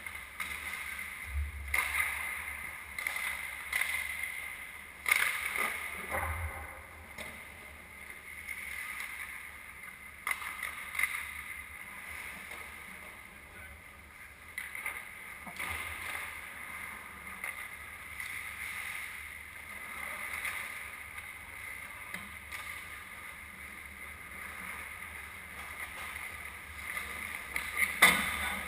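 Ice hockey play in a rink: skates scraping the ice over a steady arena hum, with sharp clacks of sticks and puck every few seconds, the loudest near the end.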